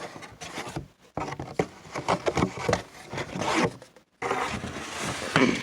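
Floppy disks and their boxes being handled and packed away: irregular rustling and scraping with many small plastic clicks, pausing briefly twice.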